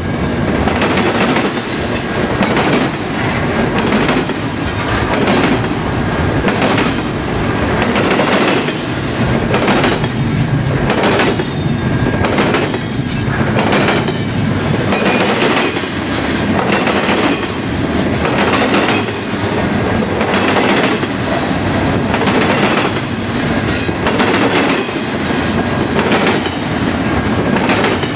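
A double-stack container train's loaded well cars rolling past, with a steady loud rumble and wheels clacking in a regular rhythm about once a second.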